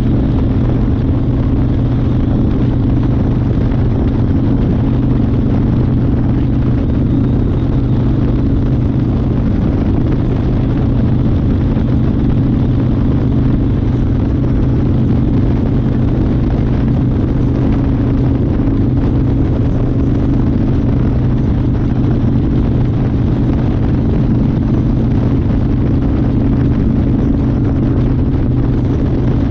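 1992 Harley-Davidson Fat Boy's Evolution V-twin engine running at a steady speed, heard from the rider's chest. The engine note holds even, with no revving or gear changes.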